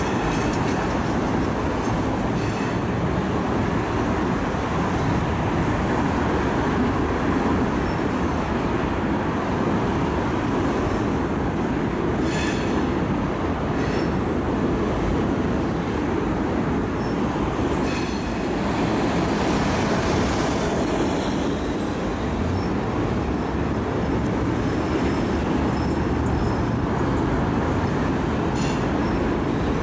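Railroad cars rolling steadily past, wheels clicking now and then over rail joints, with a faint high wheel squeal.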